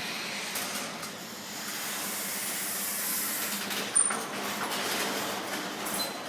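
Electric garage door opener running as the door travels along its tracks, a steady mechanical noise with a low hum and a single clack about four seconds in. The opener is malfunctioning, cycling the door open and shut on its own.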